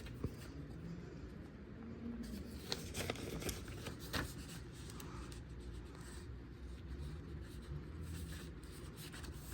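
Faint handling noise: soft rustling with a few small clicks, over a low room hum.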